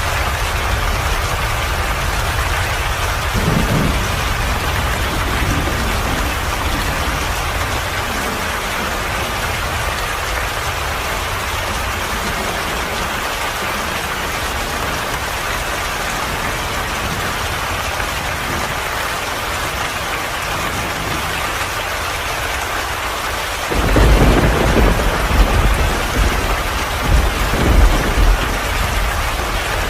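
Steady rain falling, with a short low rumble a few seconds in. A longer roll of thunder starts near the end and swells and fades in waves.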